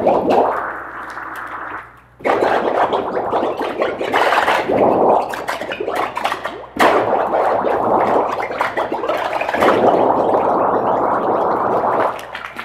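Air from sequenced solenoid valves bubbling and gurgling up through a vat of thick, chocolate-coloured liquid, in loud swells. It falls almost quiet just before two seconds in, starts again suddenly, swells up sharply about seven seconds in and drops away near the end.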